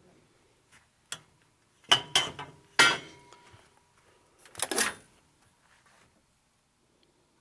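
Sharp knocks and metallic clinks: one about a second in, a cluster around two seconds, a strong one near three seconds that leaves a short ringing tone, then a brief rattle near five seconds, as the metal frame and trim of a Steelcase Avenir cubicle panel are handled.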